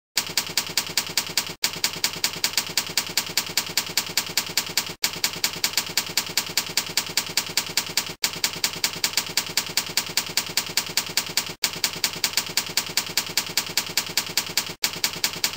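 Typewriter key-clack sound effect: rapid, even clicks about six a second as text types onto a slide letter by letter, broken by brief pauses every three seconds or so.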